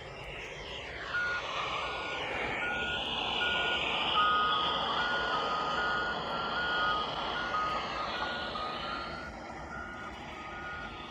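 Backup alarms on construction vehicles beeping steadily, two alarms at slightly different pitches, over the noise of a passing vehicle that swells and fades.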